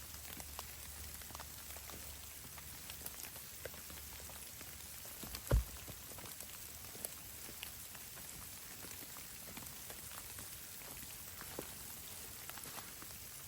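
Light, irregular patter of precipitation landing on a surface: scattered small ticks over a steady hiss. One dull low thump about five and a half seconds in.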